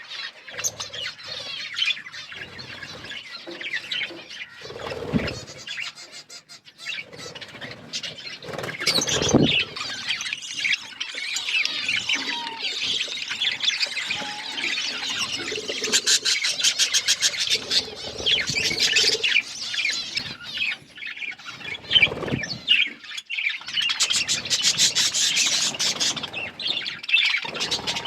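Pet budgies and lovebirds chirping and chattering continuously in high, busy calls, with squeals mixed in. A few dull thumps stand out, the loudest about nine seconds in and again about twenty-two seconds in.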